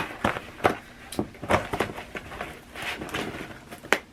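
Hands and fingernails picking and scraping at a camera box's packaging: an irregular run of sharp clicks, scratches and crinkles, with one louder click near the end.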